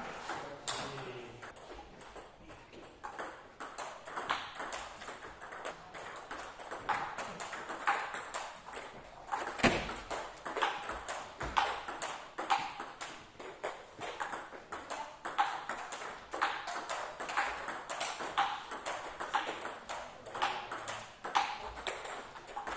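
Table tennis balls clicking off bats and table in continuous fast rallies, several clicks a second. One bat is faced with Giant Dragon Meteorite long-pimple rubber on a Yinhe LQ1 blade, in attacking play.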